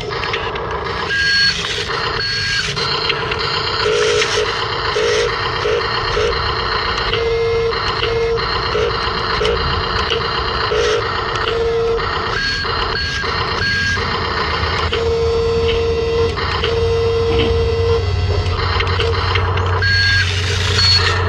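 Electronic beeping tones at a few fixed pitches switching on and off over a steady noisy whir, with a low hum coming in near the end.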